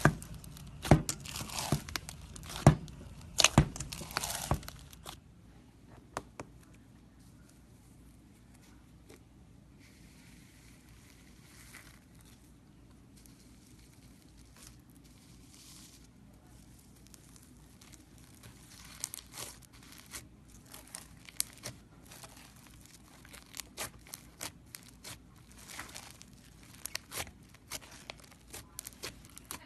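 Slime being squished and poked by hand, giving a string of sharp, crackling clicks and pops. They are loud for the first five seconds, turn faint for a long stretch, then come back as scattered pops about nineteen seconds in.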